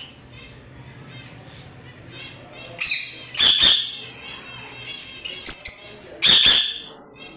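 Fischer's lovebirds chattering in a steady run of rapid, high chirps, broken by loud, shrill screeches about three seconds in and again around six seconds in.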